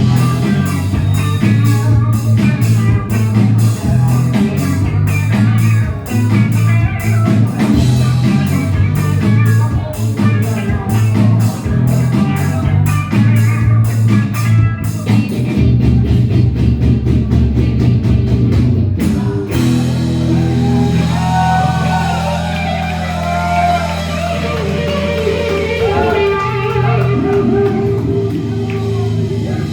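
Rock band playing live, with drums, guitar and bass. About two-thirds of the way through, the drums drop out, leaving held bass notes under a melody that bends in pitch.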